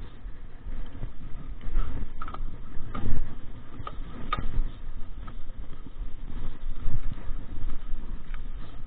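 Mountain bike rattling and knocking over a rough, stony dirt trail, with an uneven low rumble from vibration and wind at the bike-mounted microphone.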